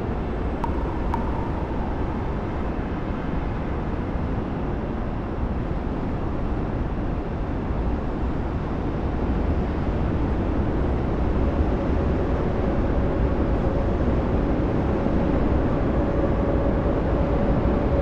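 Diffuse city ambience heard from a distance: a steady low rumble of city traffic with no close pass-bys. A faint steady tone joins in about two-thirds of the way through as the rumble swells slightly.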